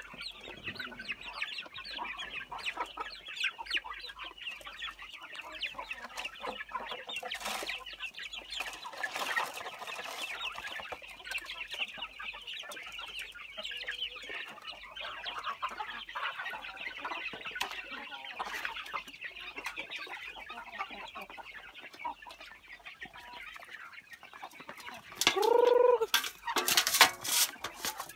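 A flock of chickens clucking, a dense, continuous high-pitched chatter of many short calls. About 25 seconds in comes one loud call that falls in pitch, then several sharp knocks.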